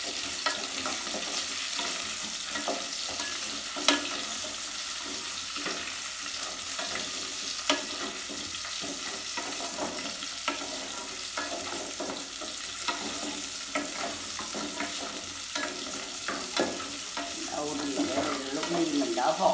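Ribs sizzling as they brown in a metal pot on a gas burner, stirred with long wooden chopsticks that click and knock against the pot every second or two.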